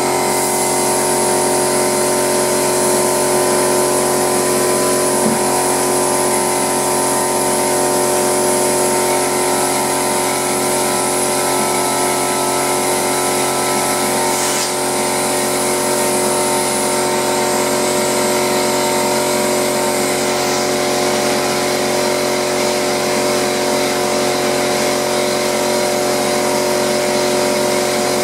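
Air compressor running steadily while a drywall texture hopper gun sprays, its air hissing high. The hiss steps down partway through and stops a few seconds later, while the compressor runs on.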